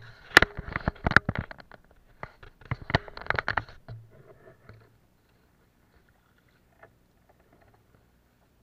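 Kayak paddle clattering and knocking against the kayak's hull in two bursts of sharp knocks over the first four seconds, then near quiet.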